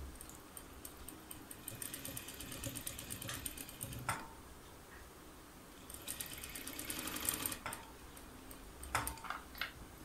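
Industrial single-needle sewing machine stitching a hem on velvet in two short runs, about four seconds and then nearly two seconds, with a pause between: this is the lock (backstitch) at the end of the seam. A few sharp clicks follow near the end.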